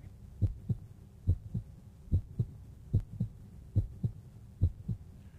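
Heartbeat sound effect: a slow double thump (lub-dub) repeated six times at about seventy beats a minute over a faint hum.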